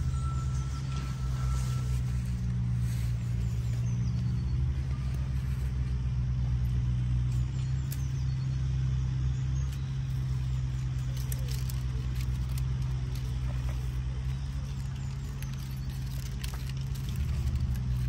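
An engine running steadily, a low drone with no change in pitch, with a few faint taps and knocks over it.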